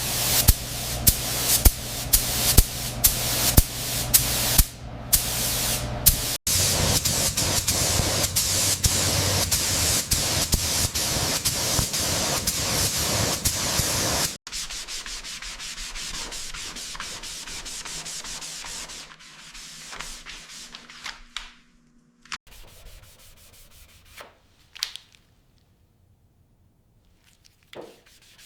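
Workshop sanding: a series of sharp taps about twice a second for the first six seconds, then steady abrasive rubbing that drops in level about halfway through and dies away to a few light scrapes near the end.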